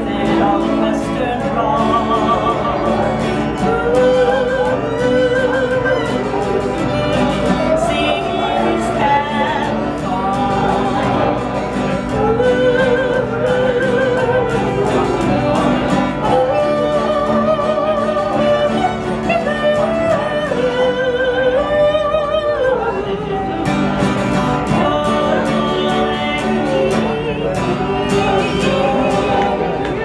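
A woman singing a country song in long, held notes with a wavering pitch, accompanied by a strummed mandolin and a bowed fiddle.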